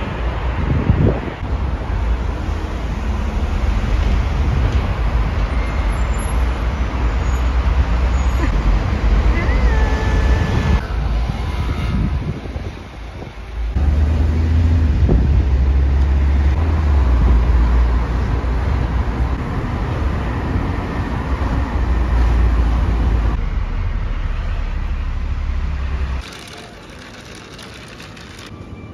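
Steady road and engine rumble from inside a moving vehicle in city traffic, dipping briefly once midway. Near the end it drops away to quieter indoor ambience.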